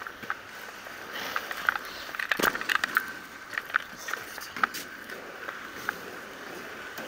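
Wheels rolling over city pavement: a steady rattle with a faint hum, broken by irregular clicks and knocks, the loudest about two and a half seconds in.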